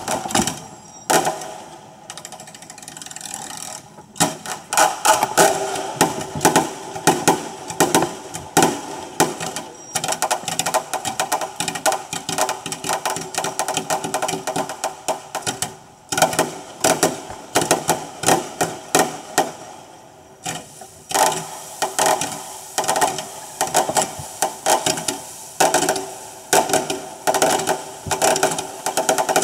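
Fireworks explosions on a sped-up, reversed recording: a fast, uneven rattle of bangs and crackles, several a second, easing off briefly a couple of times.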